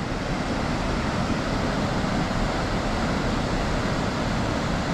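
Creek water rushing, a steady even noise.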